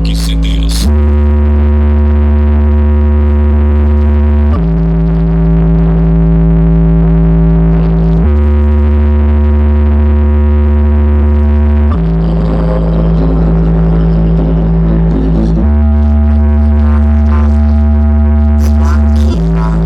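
Music played very loud through a car sound system built around an Eros 4.5 18-inch subwoofer on an HD 8000 amplifier, dominated by long held bass notes that change pitch about every four seconds.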